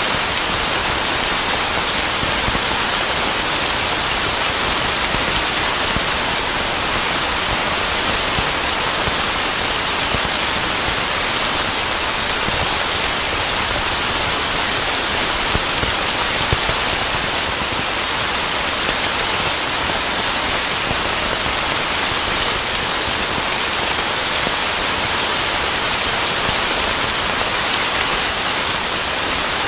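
Steady heavy rain falling on a surface, a dense even hiss of drops with no let-up and no thunder.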